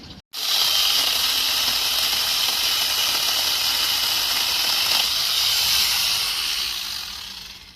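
Angle grinder fitted with a chain saw adapter running, a loud, steady, hissing high-speed whir that starts abruptly and fades away near the end.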